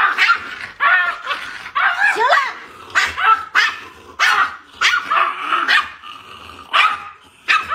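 Small dogs play-fighting, with a quick run of high-pitched yips and barks, about two a second, some sliding in pitch. There is a short lull about six seconds in.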